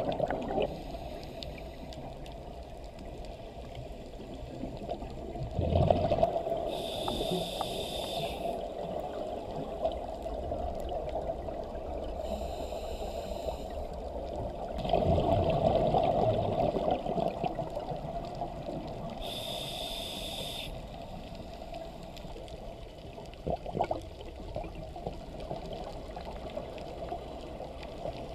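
Scuba diver breathing through a regulator underwater: three hissing inhalations a few seconds apart and rushing bursts of exhaled bubbles, over a steady underwater rumble.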